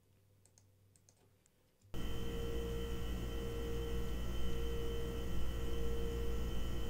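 Recorded refrigerator hum played on its own: a steady electrical hum with a deep low drone and a steady mid-pitched tone over it. It starts suddenly about two seconds in, after near silence broken by a few faint clicks.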